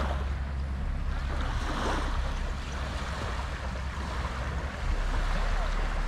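Wind buffeting the microphone in gusts over the wash of waves.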